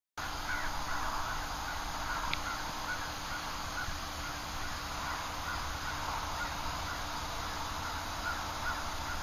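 Birds calling over and over, short harsh calls every half second to a second, over a steady low rush of background noise.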